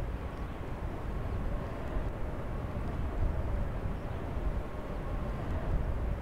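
Wind buffeting the microphone in the open air: a steady, uneven low rumble, with a faint steady hum above it.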